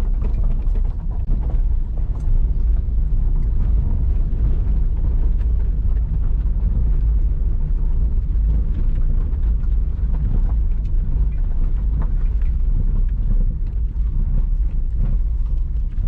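Wind buffeting the microphone while riding, a steady low rumble with a vehicle's running noise underneath.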